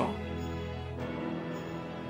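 Soft background music with steady held notes.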